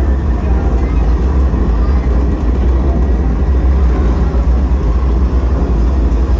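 Deep, steady rumble of a simulated rocket launch, played loud through the ride capsule's sound system, its weight in the low bass.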